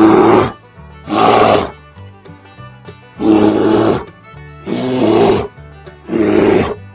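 A large animal roaring five times, each roar lasting under a second and coming about every second and a half, over steady background music.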